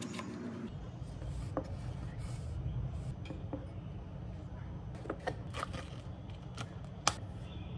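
Small kitchen knife slicing strawberries on a cutting board, with light clicks and taps of the blade on the board, then glass and plastic handling clicks as a dessert bowl and a yoghurt pot are set down and opened, one sharper click near the end. A steady low hum runs underneath.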